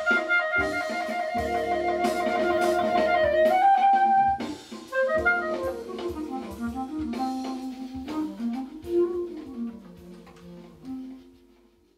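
Yamaha YCL-450 grenadilla-wood B-flat clarinet being played: one long held note for the first few seconds, then a short higher note and a melodic phrase that winds down into the low register, fading away near the end. A rhythmic accompaniment with low thumps runs underneath.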